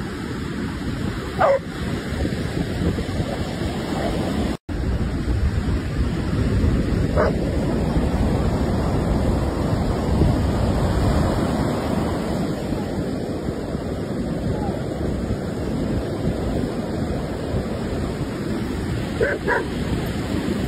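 Ocean surf washing steadily onto a beach, with a dog barking a few times over it: once a second or so in, once about seven seconds in, and twice in quick succession near the end.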